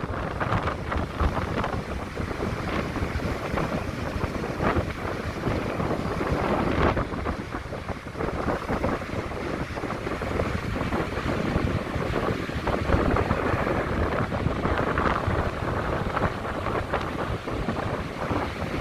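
Sea surf washing against the shore, swelling and easing every few seconds, with wind buffeting the microphone.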